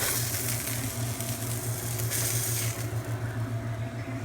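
Sausages sizzling in butter in a pot as they are taken out; the sizzle drops away about three seconds in, leaving a steady low hum.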